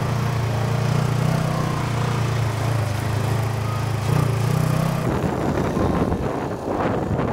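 Small engine of a youth quad or side-by-side running steadily; about five seconds in the sound turns rougher and noisier.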